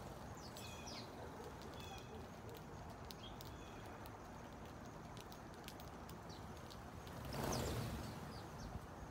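House sparrows chirping now and then while pecking seed off concrete, with light ticking taps. About seven and a half seconds in, the flock flushes together in a brief whoosh of wingbeats, the loudest sound.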